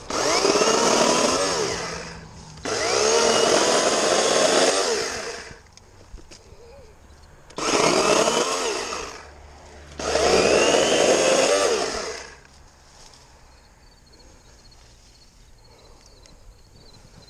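Kobalt 80-volt cordless electric chainsaw with an 18-inch bar running in four bursts of a few seconds each as it cuts through tree limbs, each burst starting sharply; the saw falls silent about twelve seconds in.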